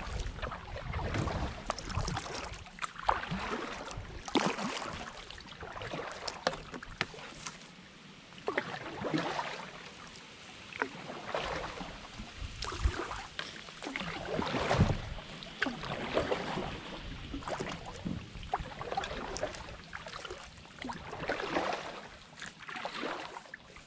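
Kayak paddle strokes: the blades dip into and pull through calm creek water, giving a splash and swish about every one to two seconds.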